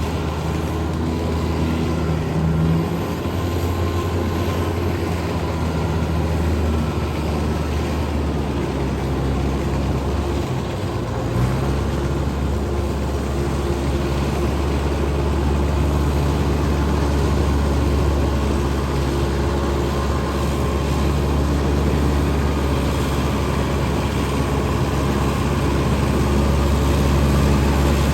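Kubota DC93 rice combine harvester running steadily under load as it harvests, its diesel engine giving a continuous low drone with a short dip about ten seconds in.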